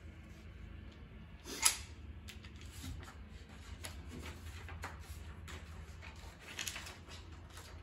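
Small handling noises of a paper template and a metal F-clamp: paper rustling with a few light clicks and knocks, the sharpest about a second and a half in, over a low steady hum.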